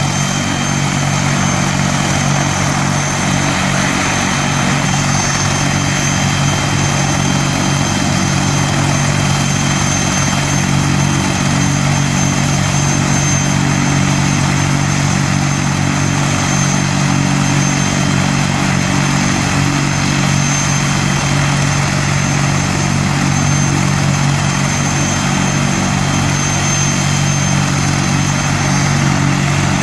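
Two Army Air Corps Apache AH1 attack helicopters running on the ground, their twin turboshaft engines and rotors making a steady deep hum under a high, steady turbine whine.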